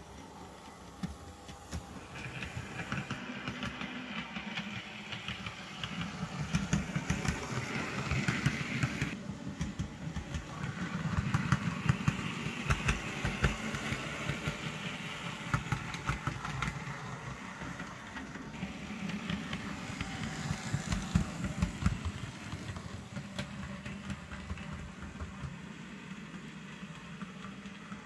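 Sound-fitted Bachmann Class 90 model electric locomotive running on the layout track: a low rumble with rapid fine clicking from the wheels on the rails, under the sound decoder's electric-locomotive running sound, a hiss that swells and fades twice.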